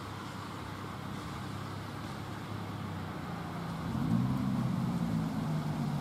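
Distant road traffic noise, joined about four seconds in by a vehicle engine's steady low hum.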